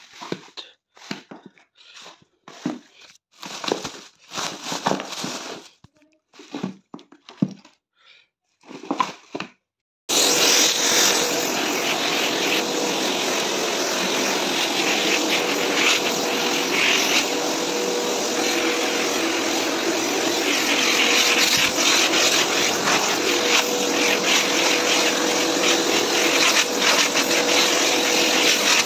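A plastic rubbish bag crinkling in short bursts as it is handled over rubble. About ten seconds in, a loud steady machine noise with a faint hum starts abruptly and runs on unchanged.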